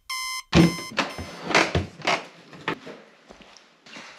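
An electronic alarm clock gives one last short beep at the start. Then, about half a second in, comes a string of sharp knocks and clinks of dishes and cutlery on a table, the first one the loudest.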